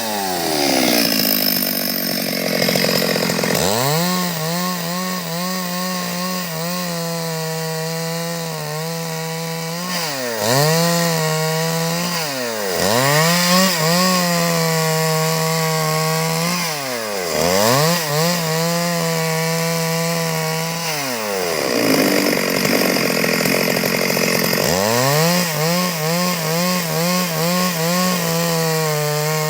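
Stihl MS 382 two-stroke chainsaw running at high revs while cutting wood, its engine pitch dropping and climbing back several times as the throttle is eased and opened again.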